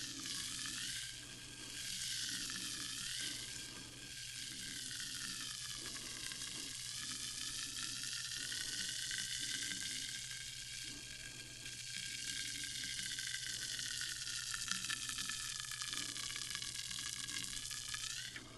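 Sparkling water fizzing: a steady dense crackle of carbonation bubbles bursting, with a ringing resonance that slowly sinks and rises in pitch, over a faint low hum.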